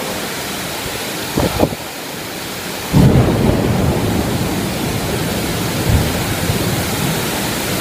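Heavy rain pouring steadily. About three seconds in, a louder low rumble sets in and continues.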